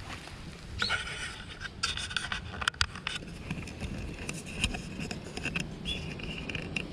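Dry fallen leaves crackling and rustling as a cat sniffs and steps through them, with a burst of sharp crackles about two to three seconds in. Birds chirp now and then.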